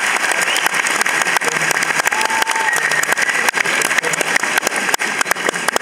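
A large theatre audience applauding: dense, steady clapping, with a short high whistle-like tone about two seconds in.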